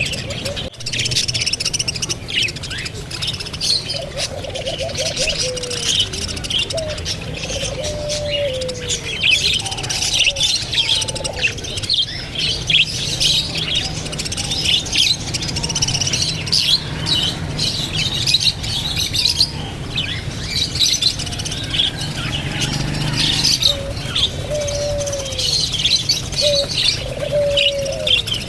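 A flock of parrots chirping and twittering continuously, many short high calls overlapping, with lower whistled notes now and then that slide down in pitch.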